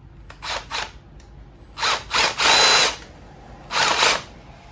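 Cordless drill driving an engine-mount bolt out of a dirt bike's frame in short spurts: two brief ones, then a longer run of about a second, then one more brief spurt near the end.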